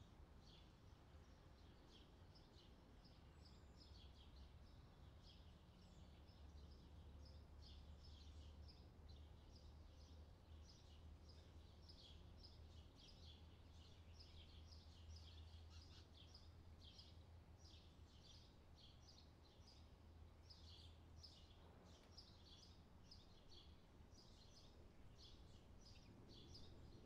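Faint, dense crackling of butter sizzling in a saucepan as the water in it cooks off while it is clarified into ghee. There is a low hum under it.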